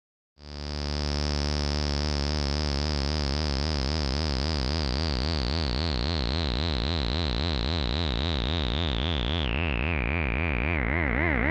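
Welson Syntex analogue synthesizer sounding one held note from its first oscillator, the pitch wobbling evenly in a vibrato from the LFO. A resonant filter peak glides slowly downward through the tone, then drops in two steps near the end as the filter cutoff is lowered.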